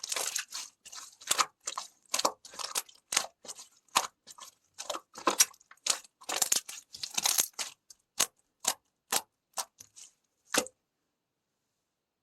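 A heart-shaped piece of clay being broken and crushed. It makes a quick run of crisp crunches and crackles, some in longer clusters, then thins to single cracks and stops about ten and a half seconds in.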